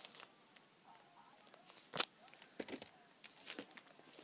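Clear plastic sleeves on paperback manga volumes crinkling and clicking as the books are handled and swapped, in short scattered bursts with the sharpest about two seconds in.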